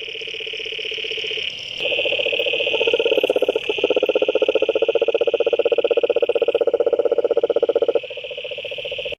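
A chorus of frogs calling in fast-pulsing trills. A lower trill starts and stops abruptly several times over a near-continuous higher-pitched trill.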